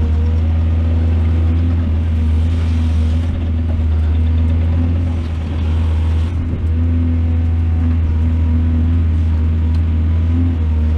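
Heavy diesel engine of a mining excavator running steadily under load, with a deep, even hum.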